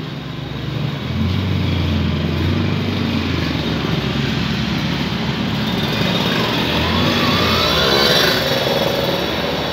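A motor vehicle's engine running close by, a steady low hum that swells and rises in pitch about three quarters of the way through, as if accelerating or passing.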